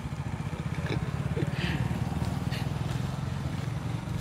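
A motorcycle engine running steadily with a low, even throb. A few faint voices come and go above it.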